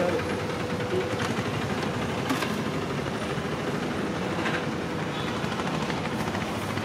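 Steady roar of a gas burner under a wok of oil, with bajjis frying in it, and a few light clinks of metal utensils.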